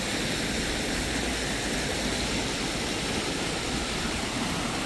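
Rain-swollen creek rushing through its rapids after heavy rainfall: a steady, even rush of water.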